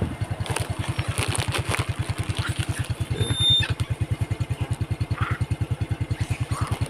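Motorcycle engine idling with a steady rapid putter of about ten beats a second, with a brief high squeak a little past the middle.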